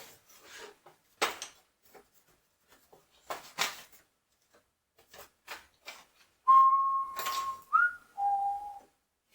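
A person whistling three steady notes near the end: one held note, a short higher note, then a lower held note. Before that, a few light clicks and knocks of small items being handled.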